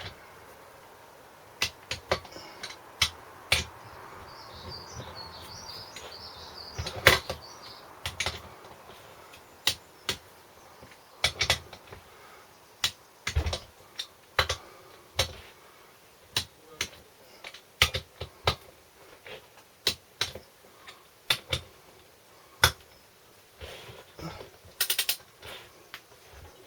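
Irregular sharp clicks and knocks from hand tools and parts being worked during the reassembly of a Briggs & Stratton small engine, coming every half second to a second or so.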